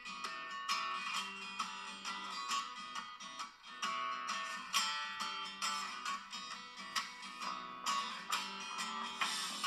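Background music: strummed guitar with a steady rhythm.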